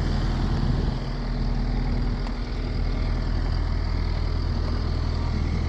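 2021 Takeuchi TL10V2 skid steer's diesel engine running at a steady idle, just after an easy start.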